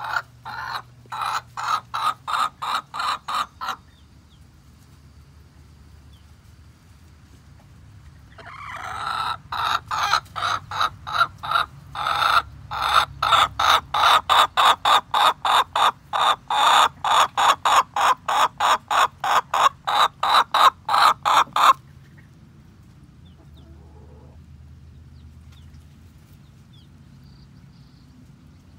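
Chicken clucking in fast, evenly spaced runs of about three calls a second: a short run at the start, then a long loud run from about eight seconds in that stops abruptly near twenty-two seconds.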